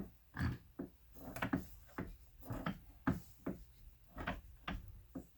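Irregular knocks and clunks of hard parts being handled, about a dozen over a few seconds, as engine parts are worked by hand during a teardown.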